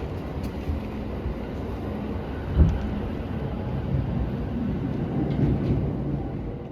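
Musashino Line electric train heard from inside the car, running slowly under a speed restriction for heavy rain and strong wind: a steady low rumble of wheels and running gear. There is one loud knock about two and a half seconds in, and the sound fades away near the end.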